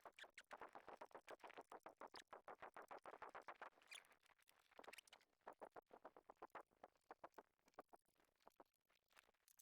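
Faint, quick ticks and light taps from handling a plastic-cased jobsite radio on the bench: a rapid run for the first few seconds, then scattered ticks that die away.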